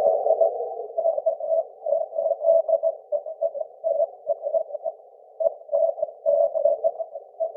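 Morse code (CW) received on the 6-metre band by aurora propagation, heard through the radio's speaker: a keyed note chopped into dots and dashes, smeared into a rough, hissy band instead of a clean tone, as aurora-scattered signals sound.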